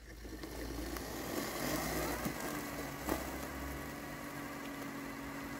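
LandXcape LX790 robotic lawn mower's brushless motor whirring up as it starts, then running steadily with an even whine. A couple of sharp clicks come in the middle.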